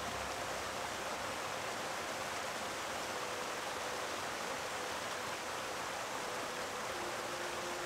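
Steady, even rushing noise with a few faint held tones over it; a lower tone comes in near the end.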